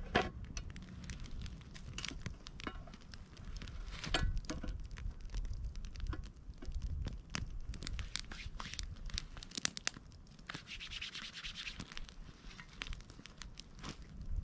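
Irregular crackles, scratches and rustling, with a short hiss about ten and a half seconds in.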